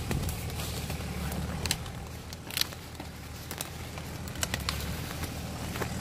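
Off-road SUV engine running steadily at low revs, with scattered sharp cracks and clicks over it.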